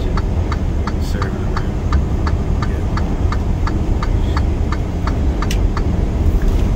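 Steady low road and engine rumble inside a moving truck's cab, with a regular ticking about four times a second.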